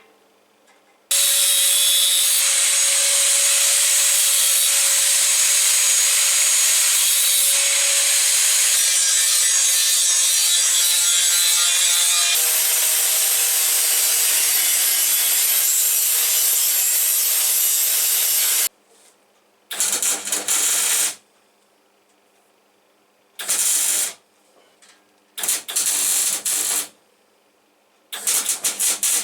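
Electric power tool running under load with a steady motor whine for about seventeen seconds, then switched on for four short bursts of a second or two each.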